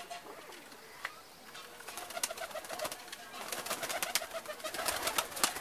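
A flock of high-flying pigeons cooing, with a run of sharp clicks and wing flaps that starts about two seconds in and grows busier towards the end as a bird takes off from the perch.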